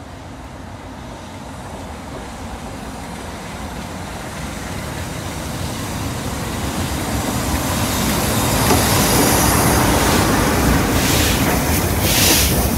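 Class 47 diesel locomotive approaching and passing at speed at the head of a train, its engine and wheel noise growing steadily louder until it goes by. A few bursts of hiss come near the end.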